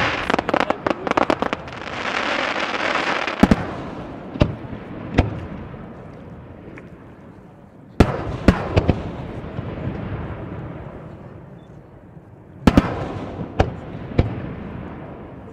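Aerial fireworks shells bursting in a starmine barrage. A flurry of sharp cracks comes at the start, then single booms a second or so apart, and two more clusters of bangs about eight and twelve and a half seconds in, with crackling hiss between them.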